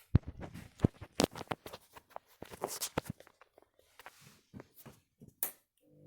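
Front-loading washing machine's drum turning over wet laundry, giving irregular thuds, knocks and clicks at uneven intervals.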